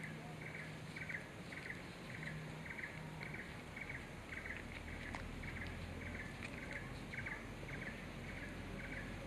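A small animal's high chirp repeating evenly, about twice a second, over quiet rural outdoor ambience with a faint low hum.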